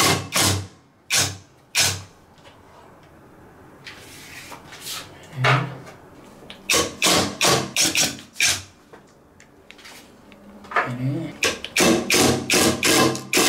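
Socket ratchet wrench being worked back and forth on the counterweight bolts of a front-load washing machine, loosening them. Short runs of sharp strokes about three a second, with pauses between runs and a couple of dull low thuds.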